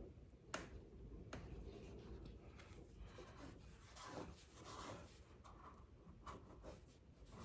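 Faint rubbing and scratching of vinyl wrap film being pressed and massaged into place around a car door handle, with two light clicks near the start.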